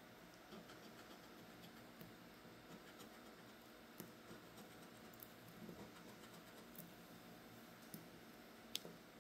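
Coin scraping the coating off a scratch-off lottery ticket: faint, steady scratching with a few small ticks and one sharper click near the end.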